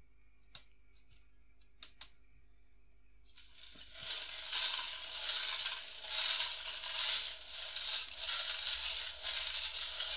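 Loose Lego pieces tumbling and rattling inside the turning plastic mixer drum of a Lego Technic concrete mixer truck: a heck of a racket. A few light clicks come first, then the rattle starts about four seconds in and keeps going.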